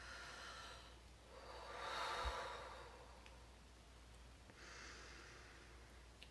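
A woman taking slow, deep breaths, faint and airy. The strongest is a long sighing exhale about two seconds in, with a softer breath near five seconds.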